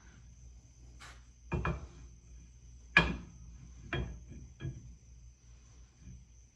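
Axle shaft being slid into a Ford 9-inch rear axle housing: a handful of separate metal clunks and clicks as it goes in, the loudest about three seconds in.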